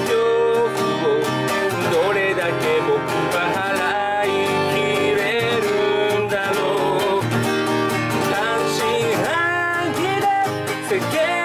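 Acoustic guitar strummed in a steady rhythm, with a capo on the neck, under a voice singing the melody in Japanese pop style.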